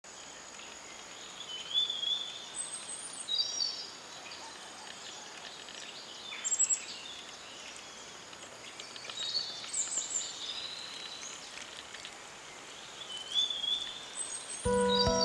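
Outdoor countryside ambience: birds sing short, bright chirping phrases every few seconds over a steady background hiss. Acoustic guitar music begins just before the end.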